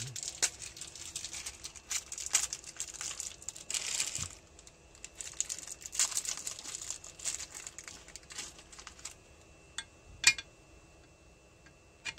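Packaging crinkling and rustling as it is handled for about nine seconds while a new bearing is unwrapped. This is followed by a single sharp click about ten seconds in.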